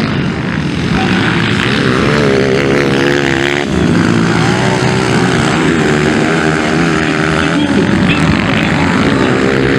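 Dirt bike engines of the 230 cc motocross class revving hard, their pitch climbing and falling as the riders accelerate and ease off around the track.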